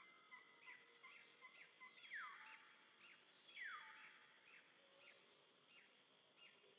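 Faint bird calls: a run of short repeated chirps, with two louder calls that sweep downward in pitch about two and three and a half seconds in.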